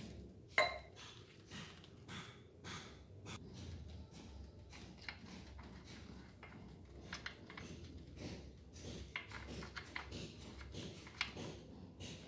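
Faint handling sounds at a brush cutter engine's oil filler, where a small plastic funnel and a glass beaker are being used: one light ringing clink about half a second in, then scattered soft clicks and taps.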